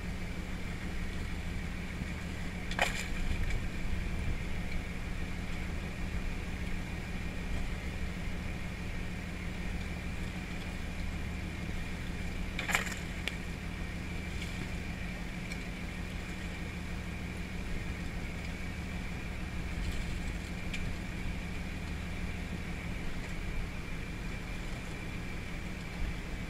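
A crab boat's engine running steadily at sea, with a thin steady whine above it. Two sharp knocks, about 3 and 13 seconds in.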